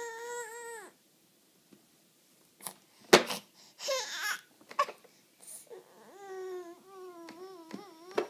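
A baby crying and whimpering in a high chair: a short wavering cry at the start, then a longer, quavering whimper-cry in the second half. A single sharp smack about three seconds in is the loudest sound.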